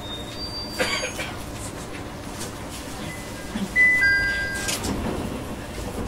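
Short electronic chime tones inside a JR E127 series train car, over the steady noise of the cabin. A few single high beeps sound near the start, then a two-note chime about four seconds in.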